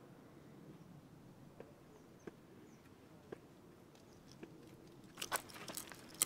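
Swiss Army knife reamer being twisted into a wooden stick, its blade scraping and crunching the wood. There are a few faint single clicks at first, then a denser run of crackling scrapes from about five seconds in.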